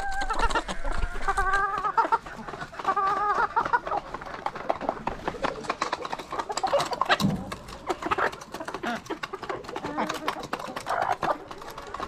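Domestic chickens clucking and calling, with drawn-out wavering hen calls in the first few seconds and shorter clucks later. Many quick clicks and taps are scattered throughout.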